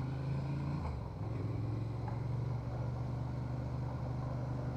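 Honda Transalp 750's parallel-twin engine idling steadily, with a brief dip in level about a second in.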